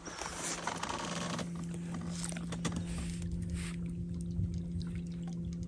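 Soft water swishing and small clicks as a trout is held by hand in the water alongside a boat for release, over a steady low hum.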